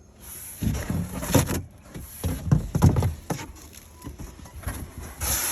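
Cardboard packaging being opened and handled: a run of irregular rustles, tears and knocks, busiest in the first few seconds and again near the end.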